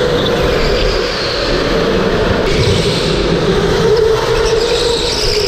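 Electric go-karts running hard on an indoor track: a steady high motor whine that rises and falls in pitch as the karts speed up and slow through the corners, over a constant rush of running noise.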